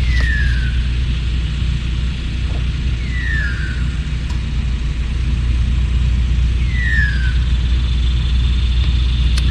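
Steady low rumble with a short falling whistle, likely a bird's call, repeated about every three and a half seconds. A thin steady trill, possibly insects, comes in near the end.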